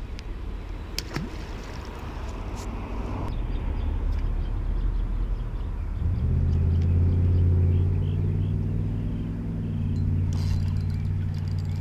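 Low rumble with a sharp click about a second in, then from about six seconds in a steady low engine hum.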